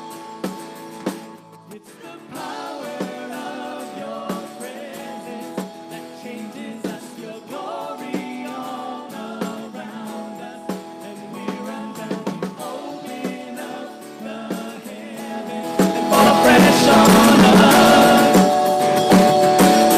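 Live worship band music: voices singing over acoustic guitar and keyboard, with regular soft drum hits. The music swells louder and fuller about sixteen seconds in.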